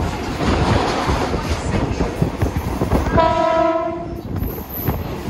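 Suburban electric local train running, a steady rumble and rattle of wheels on track, with a short horn blast about three seconds in.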